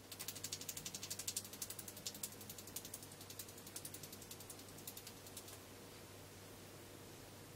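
Quick, faint ticking of a paintbrush dabbing paint onto a glass jar, several taps a second, stopping about five and a half seconds in.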